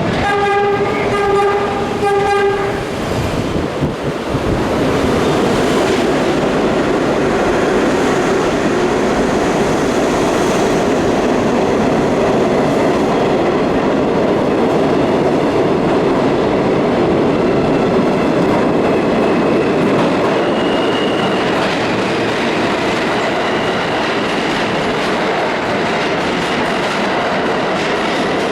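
A subway train sounds its horn at the start, two blasts ending about three seconds in. It then rolls past with a steady loud rumble and wheel clatter. Faint high wheel squeal comes in over the last ten seconds.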